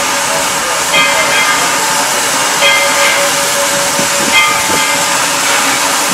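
Steam locomotive standing and hissing steam steadily. Short high chirps recur about every second and a half to two seconds.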